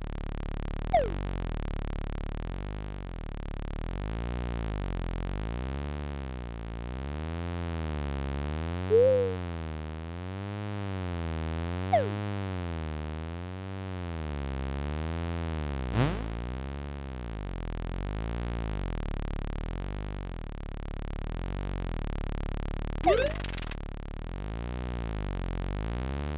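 Synthesized background music: a steady low drone with a slow, even wobble, broken every few seconds by short cartoon sound effects—quick falling whistles, a brief chirp and one fast rising zip.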